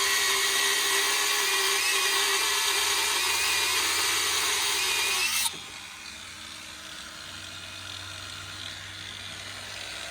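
Bauer 20V brushless cordless angle grinder cutting through steel, a loud steady grinding with a wavering high whine. It stops suddenly about five and a half seconds in, leaving only a much quieter background.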